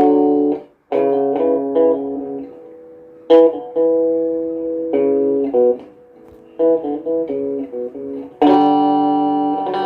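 A guitar being played: chords picked in short phrases with brief pauses between them, and a last chord struck about eight and a half seconds in that rings on.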